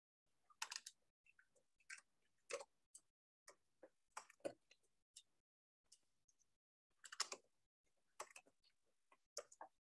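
Faint, irregular clicks, one or two a second, over near silence.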